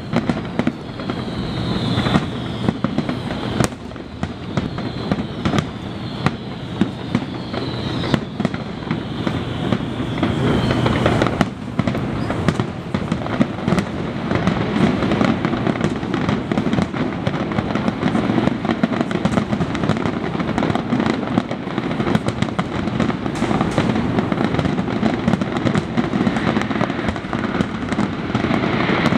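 Fireworks finale: a dense barrage of aerial shells bursting, with bangs and crackling running into one another over a continuous rumble. Several high falling whistles sound through the first ten seconds or so.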